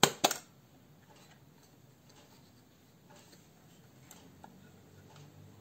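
Two sharp metallic clicks about a quarter second apart as the back latch of a Mamiya C33 twin-lens reflex camera is released and the film back opens. A few faint ticks of handling follow.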